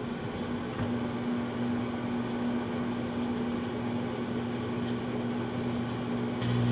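Microwave oven running: a steady electrical hum with the whirr of its fan, the low hum growing louder near the end.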